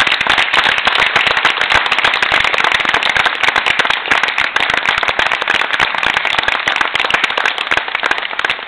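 Applause: many hands clapping at once in a dense, steady patter, from the audience and the girls who performed.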